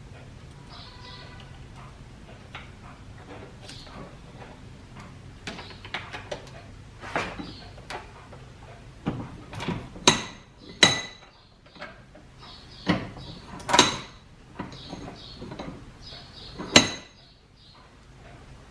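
Hand tools and metal parts clinking and knocking, with a few sharp, loud knocks later on, some ringing briefly, over a steady low hum.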